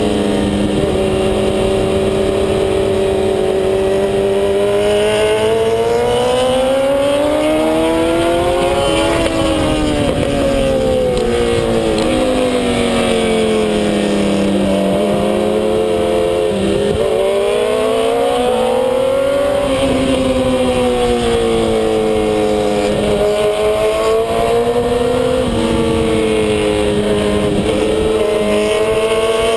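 Kawasaki ZX-10R inline-four sport-bike engine heard from on board at racing pace. Its pitch climbs as it accelerates and drops as it slows, several times over.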